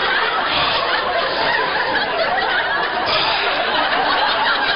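A large audience laughing loudly and continuously, many voices at once.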